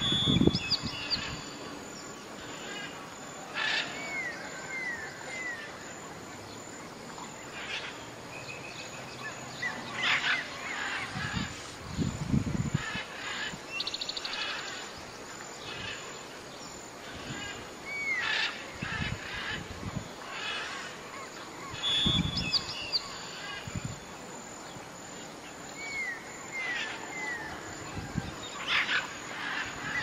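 Several birds calling in a mix of short chirps, trills and a few low calls. Small runs of short downward-sliding chirps come back again and again.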